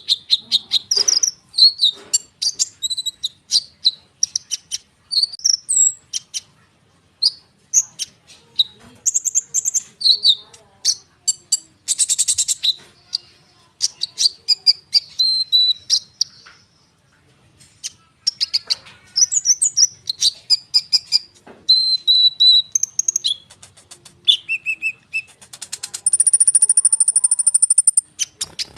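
A caged konin (kolibri ninja, a small sunbird) singing in a continuous, busy stream of high chirps, whistled notes and rapid trills with only brief pauses, ending in a fast buzzing trill over a held high note. This is the non-stop 'ngerol' song used as a lure recording to draw other sunbirds into singing.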